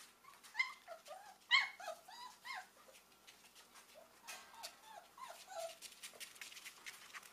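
Puppies whimpering in short, high, arching calls: one cluster in the first few seconds and another about four seconds in.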